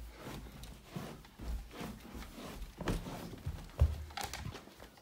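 Handling noise: scattered low knocks and light clicks, with one sharper thump a little before the end.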